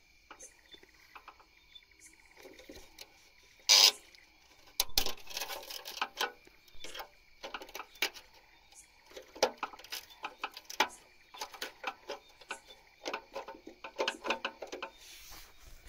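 A screwdriver working the screw terminals of a motor starter's terminal block: scattered metal clicks, scrapes and rattles, with one loud sharp knock about four seconds in. A steady high chirr of crickets carries on underneath.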